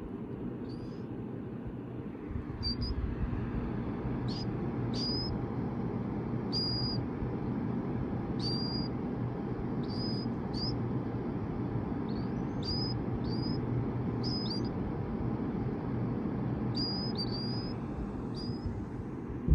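Baby killdeer chicks peeping: a dozen or more short, high, thin calls, some bending up or down in pitch, at irregular intervals. A steady low hum runs underneath.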